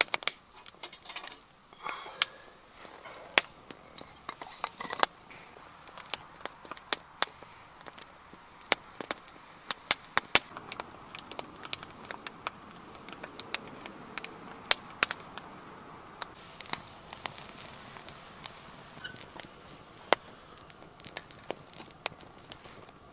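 Wood fire crackling in a small portable fire box, with many sharp, irregular cracks and pops.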